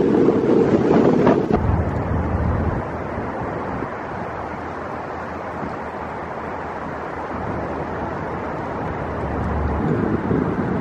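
Strong wind buffeting the microphone, with surf, for about the first second and a half. It cuts to a quieter, steady hum of light wind and distant traffic.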